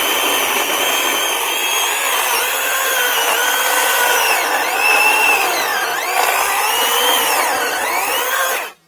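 Greenworks Pro 80-volt battery chainsaw with a carbide chain cutting into a log: a steady electric-motor and chain whine whose pitch dips and recovers as the chain takes the load. It stops abruptly near the end.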